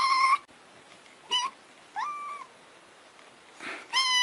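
A kitten meowing in high-pitched calls: three short meows, one rising, then a long meow that starts near the end.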